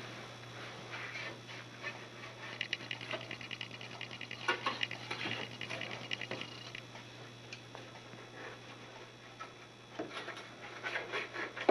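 Ski-waxing iron sliding back and forth over the wax-coated base of a cross-country ski, a soft rubbing and scraping with a quick run of fine ticks, as glide wax is ironed into the base. A steady low hum sits under it.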